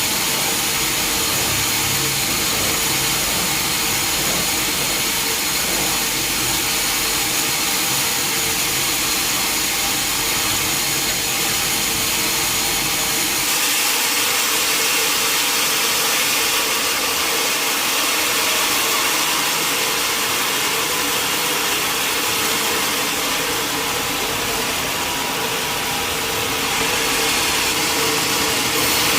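Sawmill machinery running steadily, a constant mechanical whine and rush with a few steady tones; the low rumble thins out about halfway through.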